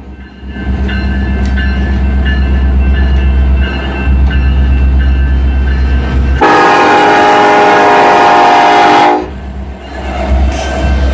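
BNSF diesel freight locomotives passing close by with a steady low engine rumble. The lead locomotive's horn sounds one long blast of about three seconds past the middle. A grade-crossing warning bell rings faintly underneath.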